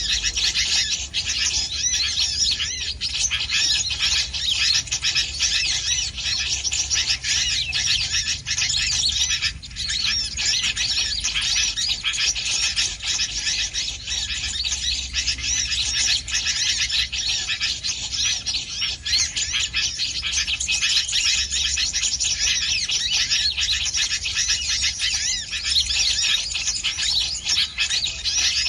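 Dense, continuous chattering of many small birds, high chirps and trills overlapping without a break.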